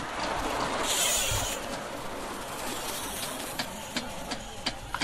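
A pack of BMX bikes riding past close through a paved turn: tyre noise on the asphalt swells to a loud hiss about a second in, then eases off, with a few sharp clicks near the end.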